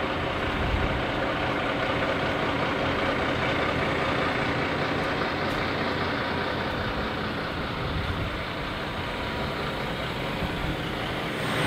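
Heavy diesel semi truck engine idling steadily.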